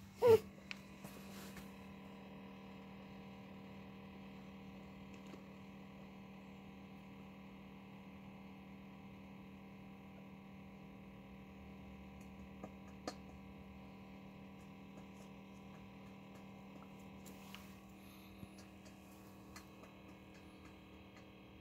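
A steady low hum with several even tones, with a few faint clicks later on. Right at the start, one brief, much louder sound falls quickly in pitch.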